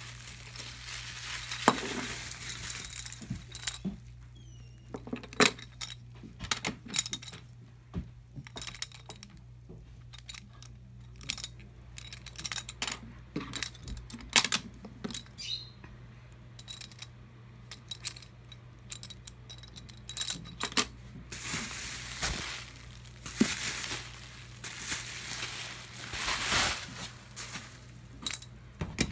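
Whittle Shortline wooden toy train cars being handled and set down on a wooden floor: a long run of sharp clicks and knocks. Bubble wrap crinkles and rustles during the first few seconds and again for several seconds near the end, over a faint low hum.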